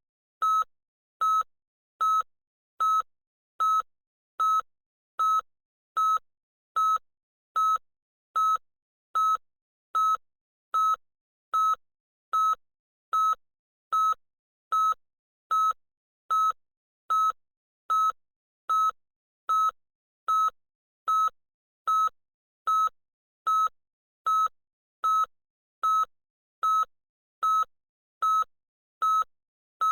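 Loud electronic beeper sounding short beeps of a single high tone, evenly spaced a little over one a second, with silence between each.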